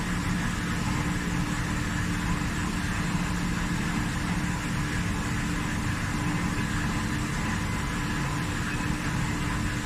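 Dörries VCE 125/160 vertical turret lathe running under power: a steady machine hum with several constant tones over a broad noise, with no change in speed or load.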